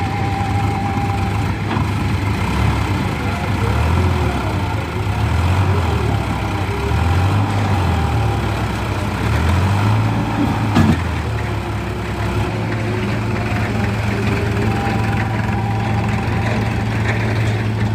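Sonalika RX 35 tractor engine running, its speed rising and falling in repeated slow swells for the first ten seconds or so, then settling to a steady idle. A single sharp knock about eleven seconds in.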